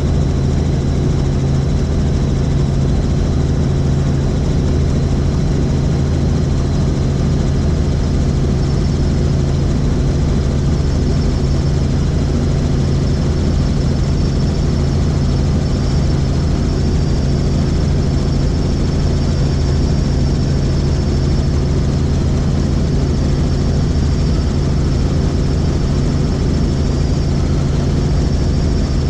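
Helicopter in flight: a steady, loud drone of the rotor and engine, with a thin high whine above it that rises a little in pitch about a third of the way in.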